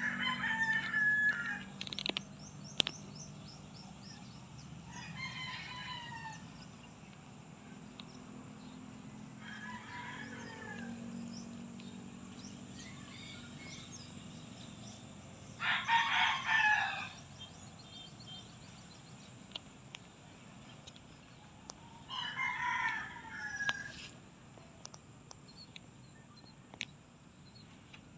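Roosters crowing: five crows of about a second and a half each, several seconds apart, the loudest about halfway through and two of them fainter.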